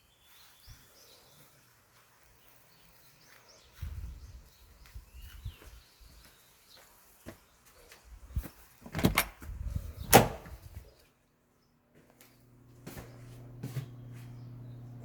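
A few knocks and low handling rumbles, with two sharp clicks about nine and ten seconds in, like a door or cupboard being worked, and faint bird chirps in the first half. From about twelve seconds in, a steady low hum sets in.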